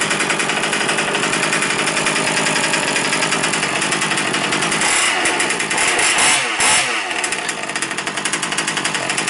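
OBR 34cc two-stroke gas engine of a Losi 5ive B fifth-scale RC buggy running steadily, freshly started, with a brief rev about five to seven seconds in.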